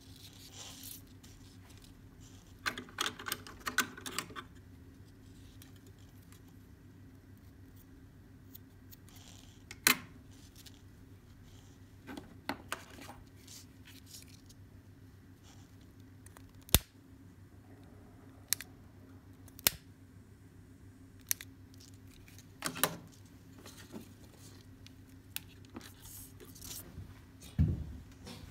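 Hands working macrame cord while tying knots: a few seconds of rustling and scraping, then scattered sharp clicks and taps every few seconds, and a dull knock near the end, over a faint steady hum.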